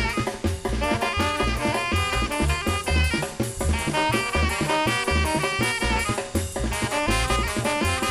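Colombian papayera brass band playing live: brass and saxophone lines over a steady beat of bass drum and percussion.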